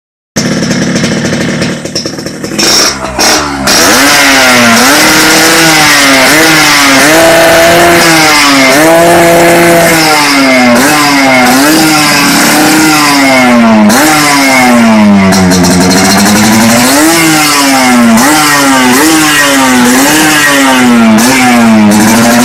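Tuned Yamaha RX-series two-stroke single-cylinder motorcycle engine with an aftermarket 'udang lobster' expansion-chamber exhaust. It is revved repeatedly in quick throttle blips, about one a second, rising and falling in pitch, with one longer, deeper dip and climb midway. The first few seconds are uneven and choppy before the steady revving sets in.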